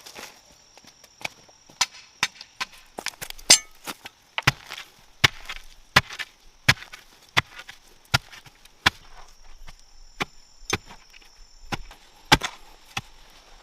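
Repeated chopping strokes into wood, sharp and irregular at roughly one to two a second.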